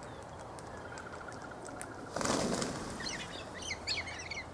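A flock of galahs takes off all at once, startled: a short rush of wingbeats about two seconds in. It is followed by a string of quick, high-pitched chirping calls as the birds fly.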